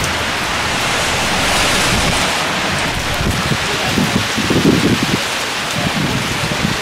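Steady rain drumming on a canopy tent overhead, with a few louder, irregular low rustles in the middle.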